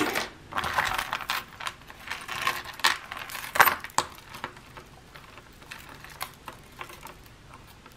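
Small pieces of costume jewelry clinking and rattling against each other while being rummaged through by hand, with some rustling. The clicks are busiest in the first four seconds, then thin out and grow quieter.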